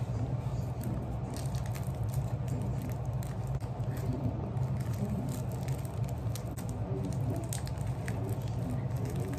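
Scissors snipping through a plastic mailer bag, with crinkling and a scatter of small clicks, over a steady low hum.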